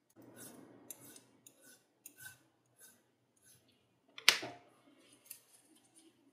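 Thin metal tool scraping along the rim of a brass lighter part in a series of short strokes, about two a second. About four seconds in comes one sharp, loud metallic click.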